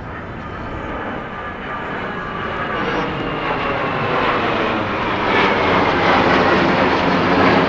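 A formation of three RAF jet aircraft flying overhead. The jet noise grows steadily louder as they approach, and a whine falls in pitch as they pass.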